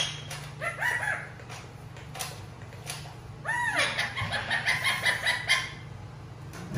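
Green parakeet calling: a few short chirps about a second in, then a louder rising-and-falling call about three and a half seconds in, followed by a quick chattering run of short notes for about a second and a half. A few sharp clicks fall between the calls as it pecks at a plastic toy car.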